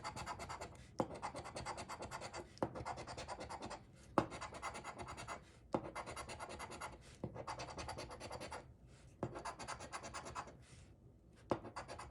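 Scratching the coating off a paper scratch-off lottery ticket with a coin, in quick runs of rapid rasping strokes broken by short pauses, each run starting with a light tap.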